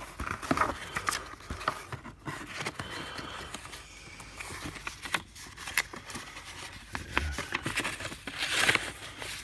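A cardboard shipping box being pulled open by hand: cardboard flaps scraping and creaking with scattered clicks and rustles, and a louder paper rustle near the end as a sheet of paper is lifted from the box.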